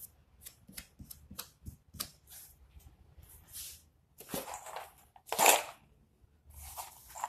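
Light clicks and taps of things being handled, then a few louder scraping rustles about four and five seconds in; the one a little past five seconds is the loudest.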